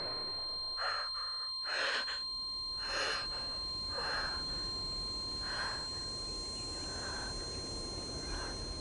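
A girl's gasping, sobbing breaths, muffled behind her hands, coming about once a second and growing fainter.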